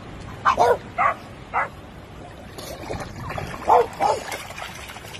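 French bulldog giving short, sharp barks or yips: four in quick succession in the first couple of seconds, then two more close together about four seconds in.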